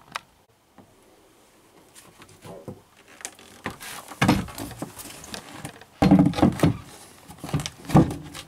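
Wooden cabin-floor hatch panels being handled and set back into place over the battery compartment: a series of knocks and clunks, the loudest about 4, 6 and 8 seconds in.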